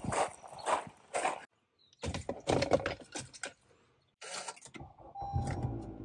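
Short scuffs and handling noises, then a car engine starts about five seconds in and settles into a steady idle, with a short electronic tone sounding twice.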